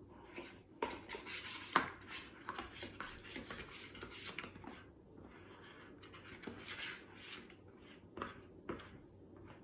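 Metal spoon stirring a sticky glue-and-laundry-detergent slime mixture in a bowl: repeated scrapes and clinks against the bowl, busiest in the first half. Two sharper clicks come near the end.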